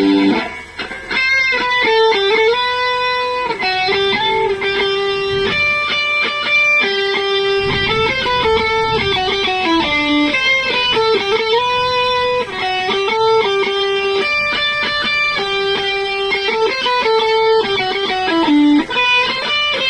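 Electric guitar played through a Line 6 POD Go multi-effects processor: a single-note melody of held notes joined by slides and pitch bends.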